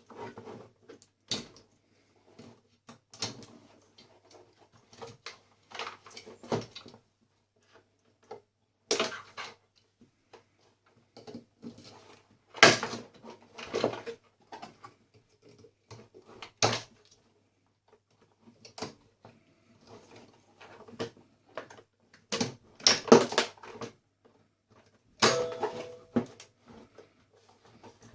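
Irregular clicks, knocks and clatters of a coffee maker being taken apart by hand, its parts pulled out and handled, with the loudest knocks about 12 and 23 seconds in.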